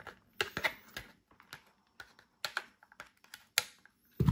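Scissors snipping an action figure free from its cardboard box insert: a string of short, sharp clicks at an uneven pace, with a duller thump near the end.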